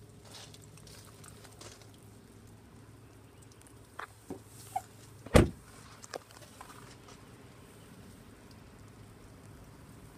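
A few clicks, then a pickup truck door slammed shut: one heavy thump about five seconds in.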